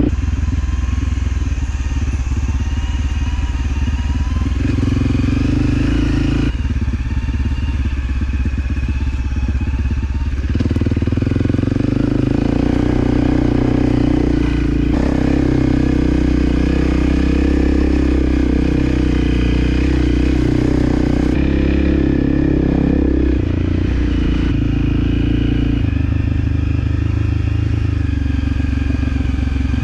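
Motorcycle engine running under way on a trail ride, its note shifting several times, about six, ten, twenty-one and twenty-four seconds in.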